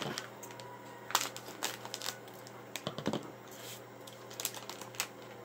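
Small plastic LEGO pieces clicking and tapping on a tabletop while a foil minifigure packet rustles in the hands. The clicks come irregularly, with sharper ones about a second in, around three seconds and near five seconds.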